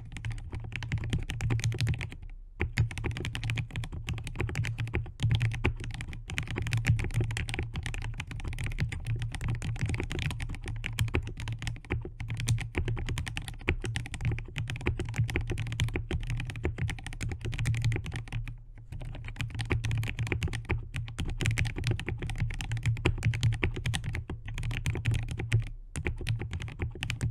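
Typing sound test on a mechanical keyboard fitted with Akko Jelly White linear switches (polycarbonate housings, POM stems): steady, fast keystrokes with a deep thock under the clicks, broken by a few brief pauses.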